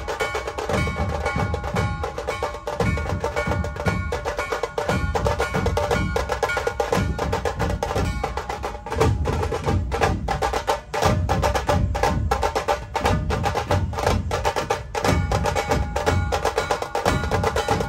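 Music with fast, driving drumming over steady held tones.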